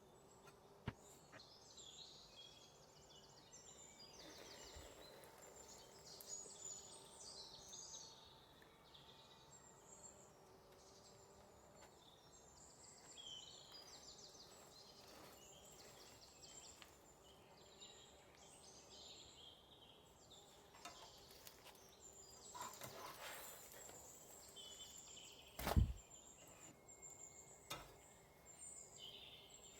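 Faint birdsong, many short chirping calls, over quiet room tone. A single sharp knock near the end is the loudest sound, with a few fainter clicks around it.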